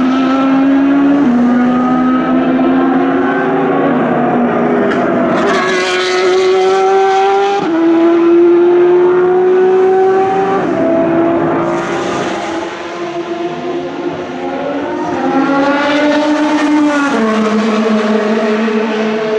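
Endurance racing cars at full throttle, passing one after another, engine pitch climbing and then dropping at each upshift.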